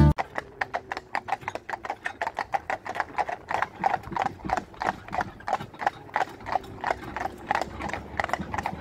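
Hooves of a pair of carriage horses clip-clopping on an asphalt road in a quick, even rhythm.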